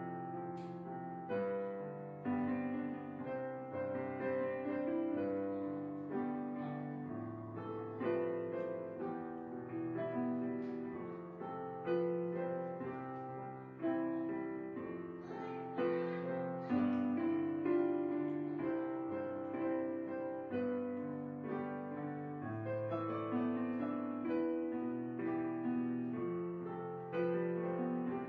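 Background piano music: notes and chords struck about every second or two and left to fade.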